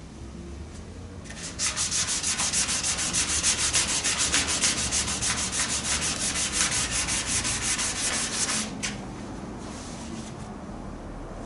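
Hand sanding of primer-surfacer on a 1978 Lincoln Mark V's body, with rapid, even back-and-forth strokes, about six or seven a second. It starts about a second in and stops a few seconds before the end. The strokes level the primer-surfacer to smooth out a step in the bodywork.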